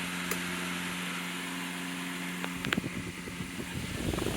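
Electric fan motor humming steadily, then a click about two and a half seconds in as the hum stops, followed by irregular clattering.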